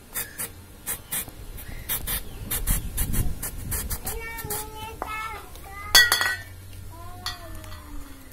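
Short spurts of gas from a nearly empty gas canister pressed into the chamber of a PVC toy gun, with the metal can clicking and clinking against the fitting. About six seconds in comes one loud metallic clank with a brief ring.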